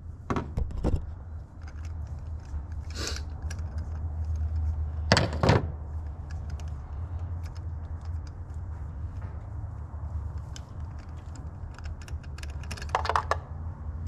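Light metal clicks and clinks of a spark plug socket on an extension bar being turned by hand in the plug well while the new plugs are threaded in, with louder clanks about half a second in and again about five seconds in, over a steady low hum.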